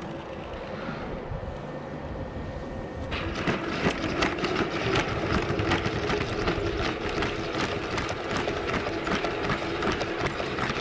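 A pack of Boston Dynamics Spot robot dogs walking on asphalt. From about three seconds in, a dense, uneven clatter of many feet striking the pavement sounds over a steady motor hum.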